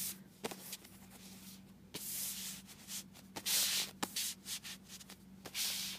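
Cardboard postcards being slid and laid out on a carpet by hand: several short scraping, rubbing bursts with a few light taps, over a faint steady hum.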